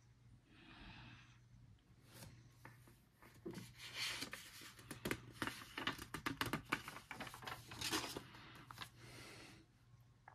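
Paper rustling and crackling as a coloring book page is lifted and turned over, a quick run of crinkles that starts about two seconds in and stops shortly before the end.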